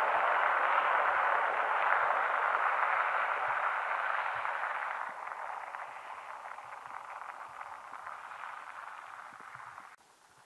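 Kia K900 sedan driving away: a steady hiss of tyre and road noise that fades as the car recedes, dropping off about five seconds in and cutting off abruptly near the end.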